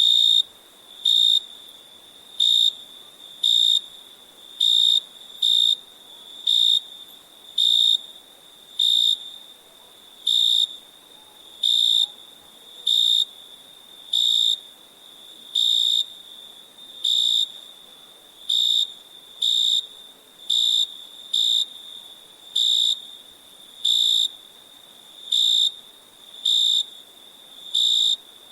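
A cricket chirping: short, high-pitched chirps roughly once a second at a slightly uneven pace, over a faint steady trill of more crickets at the same pitch.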